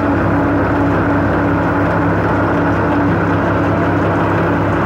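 New Holland Ghazi tractor engine running at a constant speed, driving a PTO-powered corn silage cutter and its blower; the sound is steady with an unchanging pitch.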